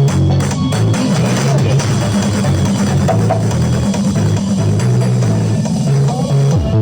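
Loud music with drums and a heavy bass line.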